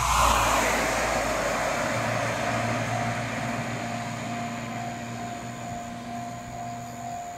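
Steady outdoor background noise by a railway line, loudest just after the start and slowly easing off, with a faint evenly pulsing tone from about three seconds in.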